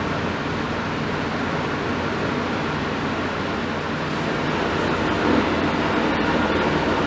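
Heavy diesel engines running steadily, growing louder about halfway through as a Mercedes truck drives up toward the demolition excavator.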